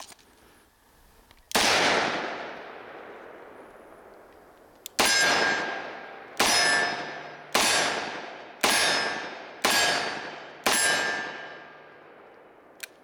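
Seven .357 Magnum shots from a Smith & Wesson 586 L-Comp revolver, each a sharp crack with a long echoing tail. One shot comes first, then after a pause six more at about one a second. The last six carry a metallic ring, as of hits on a steel target, and a faint click follows near the end.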